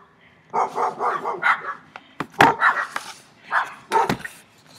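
Dogs barking loudly: about ten short barks in quick runs.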